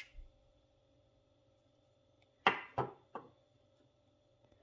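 Wooden-handled forged knives knocking against a wooden tabletop and one another as one is put down and the next picked up: a faint click at the start, then three sharp knocks within about a second, around halfway through, the first the loudest.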